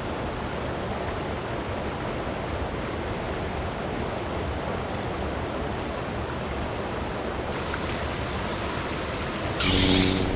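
Steady rushing of a mountain river's flowing water. Near the end there is a brief, louder burst of noise.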